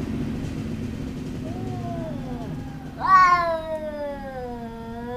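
Two domestic cats in a fighting standoff, yowling: a low steady call, then about three seconds in a loud, long, drawn-out yowl that starts high and slowly falls in pitch.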